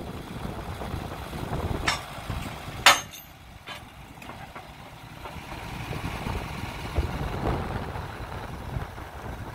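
Diesel engine of a Morooka MST800 tracked carrier running, with three sharp knocks about two, three and nearly four seconds in; the middle knock is the loudest.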